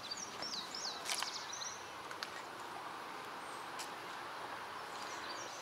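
Outdoor ambience with birds chirping in short, quick bursts in the first second or so and again near the end, over a faint steady background hiss and a few soft clicks.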